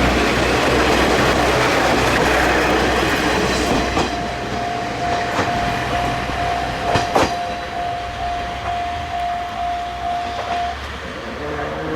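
The first-generation Iyonada Monogatari, a KiRo 47 diesel railcar, running past at speed: engine rumble and wheel noise, loudest for the first few seconds and then easing. There are a few sharp clicks from the wheels, and a steady high tone sounds from about four seconds in until near the end.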